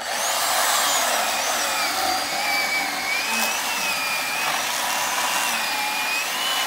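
Stihl MSE 170 C corded electric chainsaw starting abruptly and cutting through a firewood log, its motor and chain whine wavering in pitch as the load changes.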